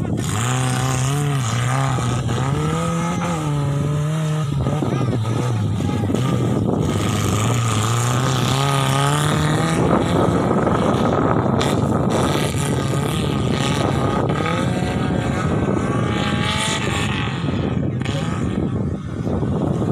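Off-road 4x4's engine revving up and down as it crosses dirt mounds, its pitch rising and falling with the throttle. About halfway through, the clear engine note gives way to a rougher, noisier sound.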